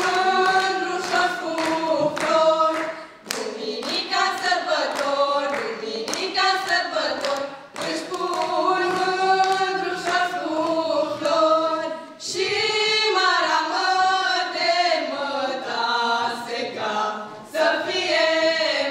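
A female vocal quartet sings a Romanian folk song a cappella in harmony, phrase by phrase with short breathing breaks. Hand claps from the audience clap along in time.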